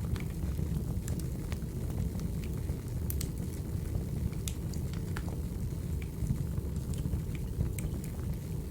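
Wood fire burning: a steady low rumble with irregular sharp crackles and pops of the burning logs.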